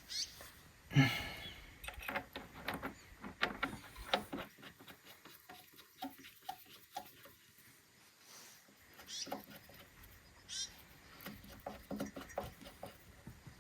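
Scattered light clicks and knocks, with one louder sharp sound about a second in, and a few short bird chirps.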